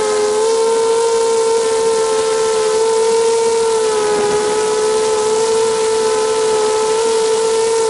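ZMR250 racing quadcopter's brushless motors and propellers whining steadily in flight, heard close from the camera mounted on the frame, with a rushing hiss of air. The pitch holds nearly level, wavering slightly as the throttle shifts.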